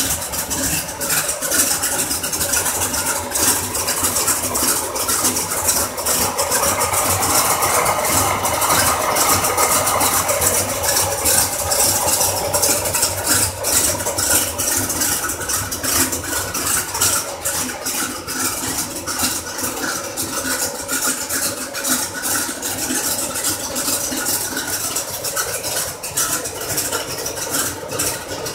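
Corvette V8 engine idling steadily, with a fast, irregular light ticking on top.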